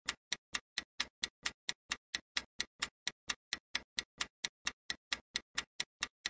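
Countdown-timer clock-tick sound effect: steady ticking, about four ticks a second, while the quiz answer timer runs.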